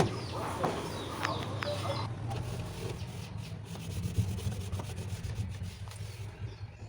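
A damp cloth rubbing and wiping over the inside surfaces and shelves of a refrigerator.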